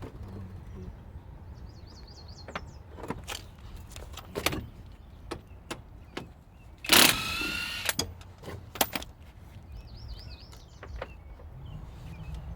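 Scattered metal knocks and clanks of tools at work on a car's suspension during a shock-absorber change, with one louder noisy burst about a second long, seven seconds in.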